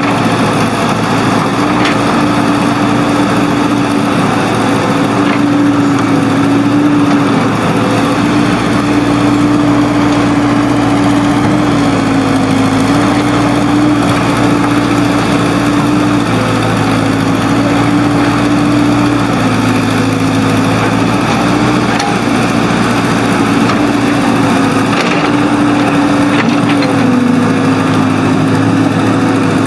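Engine of a working earthmoving machine running steadily under load, its pitch dipping slightly and recovering every few seconds.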